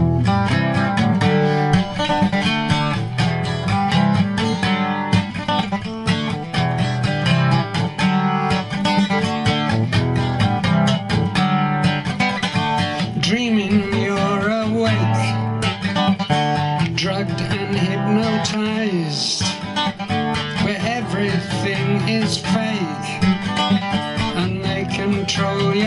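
Acoustic guitar played in a steady rhythm of strummed and picked chords, the instrumental introduction to a song.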